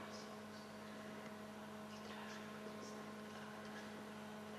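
Faint steady electrical hum over a low hiss, with a few soft, short high-pitched wisps.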